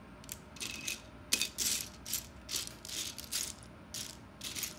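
Plastic Lego bricks rattling and clicking as they are handled and pressed together: a quick, irregular run of short rattles.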